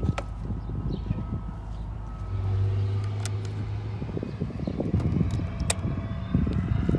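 Gloved hands working in a car's engine-bay fuse box to pull the 15-amp fuel pump fuse: a few sharp plastic clicks over rustling and a low handling rumble.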